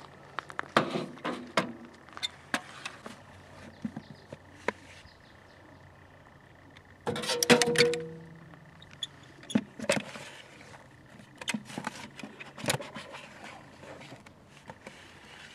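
Small hand shovel scraping a damp vermiculite and slip-clay mix out of a bucket and dropping it into the metal stove drum around the center pipe: scattered scrapes and light knocks, with a louder sound carrying a brief pitched tone about seven seconds in.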